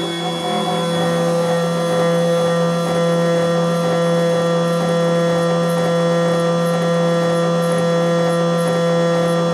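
CNC milling machine spindle running at a steady pitch with a humming whine while an end mill cuts an aluminium part. A thin high whine drops out about a second in.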